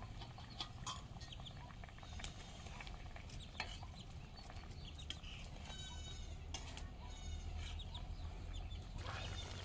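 Chickens clucking, with a couple of short calls around the middle, over scattered light clicks and knocks.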